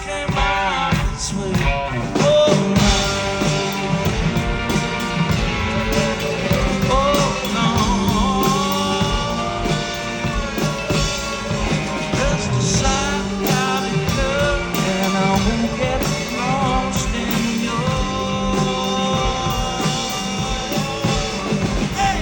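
A live rock band playing a song in concert: drums, guitar and bass under a singing voice, loud and continuous.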